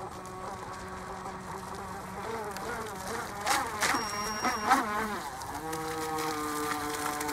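Electric motor of an RC Snapper model boat whining as it runs across the water. The pitch wavers in the middle, with two sharp brief noises, then settles into a steady, slightly louder whine near the end.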